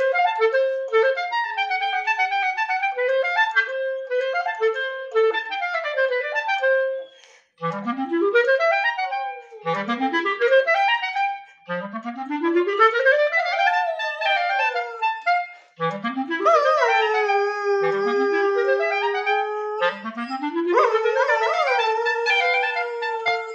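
Clarinet playing: a stepwise tune for the first seven seconds or so, then a run of rising swoops up from the bottom of its range, each a second or two long, then long held notes. Near the end a dog joins in, howling along with the clarinet.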